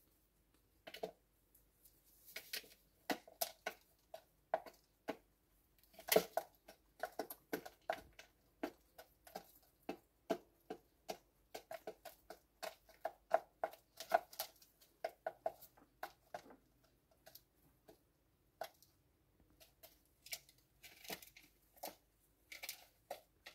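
Pigeons pecking seed from a plastic feeder dish: a run of sharp, irregular beak taps, often several a second.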